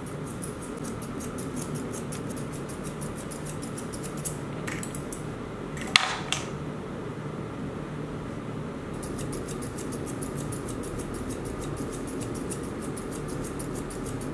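Dog-grooming shears snipping rapidly and rhythmically through a poodle's coat. The snipping pauses for a few seconds around the middle, where a single sharp click is the loudest sound, then resumes. A steady low room hum runs underneath.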